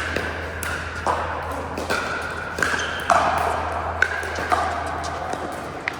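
Pickleball paddles striking the plastic ball in a rally: sharp pops every half second to a second, each followed by a short pitched ringing. A steady low hum runs underneath.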